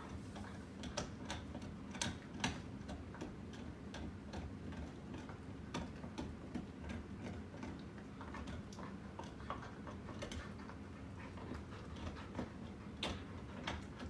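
Five-blade ceiling fan with a light kit running at speed: a steady low motor hum, with sharp ticks at irregular intervals.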